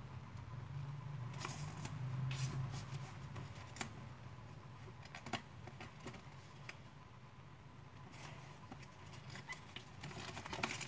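A square sheet of paper being folded and creased by hand on a wooden tabletop: scattered soft crackles, rustles and light taps, over a low steady hum that is strongest in the first few seconds.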